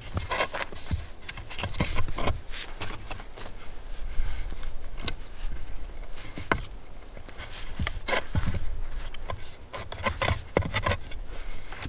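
Hands working a green stick and a thin cord wound round it: irregular scraping and rustling with short wooden clicks and knocks.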